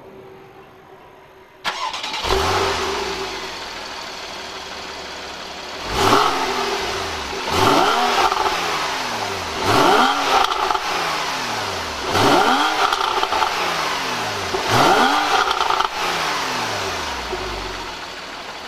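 2014 Porsche 911 Carrera's flat-six engine coming to life about two seconds in with a short flare of revs, then settling into a steady idle. Five quick throttle blips follow, each sweeping up sharply and falling back to idle, before it idles again.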